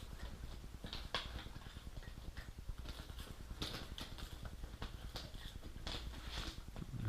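Scattered light clicks and rustles of wires being handled and pushed through a car wiring harness, a few a little louder than the rest.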